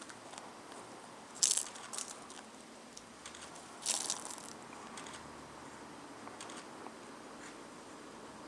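Scattered sharp clicks and rattles, with two louder clusters about a second and a half and four seconds in, over a faint steady background hiss.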